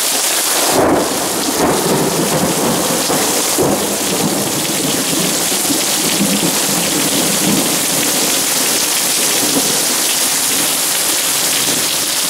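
Heavy rain pouring steadily, with a thunderclap about a second in that rolls on as rumbling thunder for several seconds.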